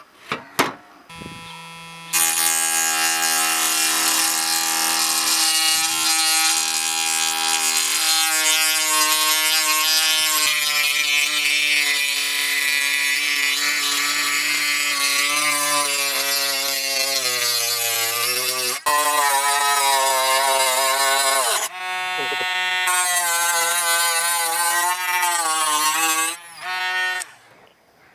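A few light knocks, then about two seconds in a small electric rotary tool with an abrasive cut-off disc starts cutting through a rusty steel saw blade. It makes a loud motor whine with a gritty hiss, and its pitch wavers and sags as the disc bites. There are a couple of brief breaks before it stops near the end.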